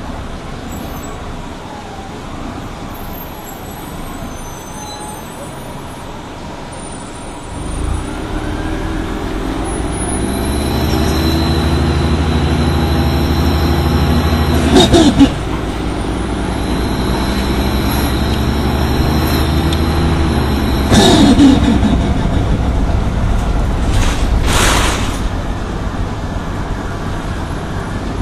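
Detroit Diesel Series 50G natural-gas engine of an Orion V transit bus pulling away and accelerating, its note climbing, with the Allison B-400R automatic transmission upshifting twice, the engine speed dropping at each shift. A short hiss of air comes near the end.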